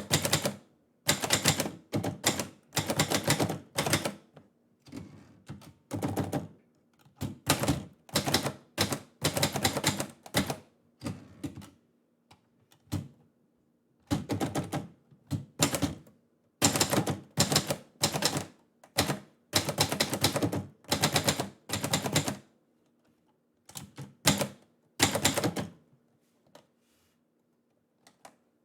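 Manual typewriter being typed in rapid bursts of keystrokes, each run lasting a second or two with short pauses between, thinning to a few single strikes and stopping near the end.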